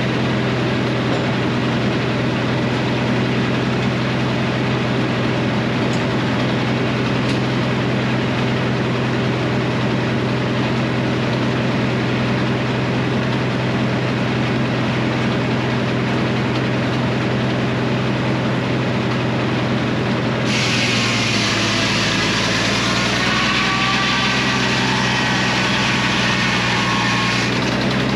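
Frick circular sawmill running steadily with a low engine hum. About 20 seconds in, a loud hiss with a wavering whine joins as the blade cuts into the maple log.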